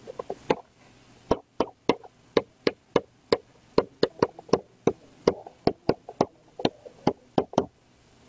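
Stylus tapping sharply against a writing tablet as figures are handwritten, an uneven run of clicks at about three to four a second.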